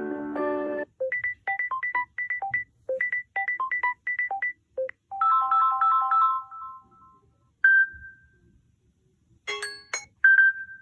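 Samsung Galaxy S22 ringtones played one after another. A short chord comes first, then a quick run of short high notes at about four a second, a repeated three-note chime that rings out, a single fading tone, and a few more chiming notes near the end.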